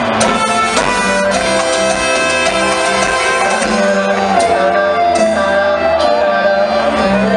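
Live band music played through a large concert sound system and heard from among the crowd, with long held notes over a steady low accompaniment.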